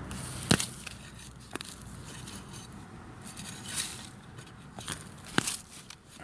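Digging by hand in root-filled soil: dirt crackling and scraping, with a few sharp clicks, the loudest about half a second in and another near the end.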